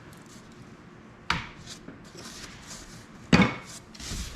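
Loose wooden beehive parts knocking and clattering as they are handled and set down: two sharp wooden knocks, the second louder, with light rustling between.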